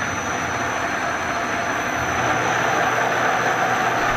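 Steady mechanical hiss and low hum, like a machine or fan running, with a faint constant high whine.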